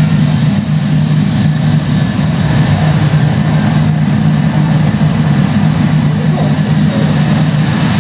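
Steady, loud, low aircraft-engine rumble, as played by a model airport's sound effects, with no breaks or changes.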